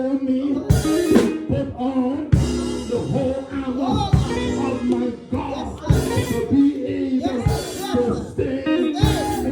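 Church praise music: a band with a drum kit playing a steady beat under singing.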